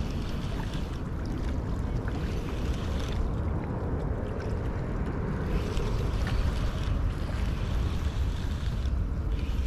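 Wind rumbling on the microphone, with small waves lapping against a rocky shore.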